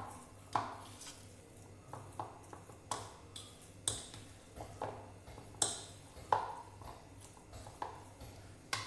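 Hand mixing a thick semolina-and-curd vada batter in a bowl, with about a dozen irregular clinks and knocks against the bowl, some ringing briefly.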